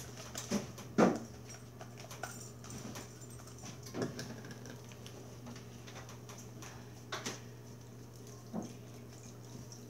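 Shaving-cream slime being scraped out of a plastic container and squished in the hands: a few short, wet clicks and squelches, the loudest about a second in, over a steady low hum.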